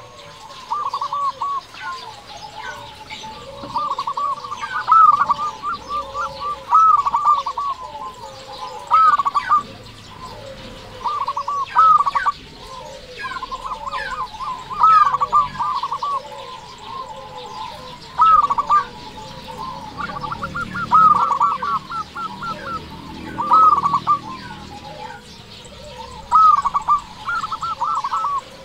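Zebra dove (perkutut) cooing: phrases of quick, rolling staccato notes repeated every one to three seconds, with a faster run of short notes about two-thirds of the way through.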